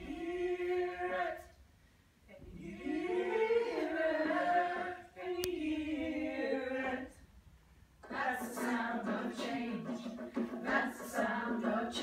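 Several women's voices singing a cappella in long held notes, two phrases with short pauses between them; about eight seconds in, a busier, more rhythmic sung passage begins.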